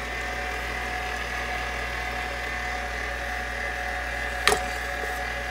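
KitchenAid stand mixer running steadily, its flat beater mixing play dough in the steel bowl: an even motor whine over a low hum. One sharp knock about four and a half seconds in.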